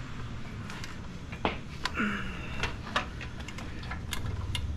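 Scattered small clicks and knocks, with a couple of short squeaks, from hands working the plastic quick-disconnect fitting on a transmission cooler line, squeezing its release clips to pull the line off.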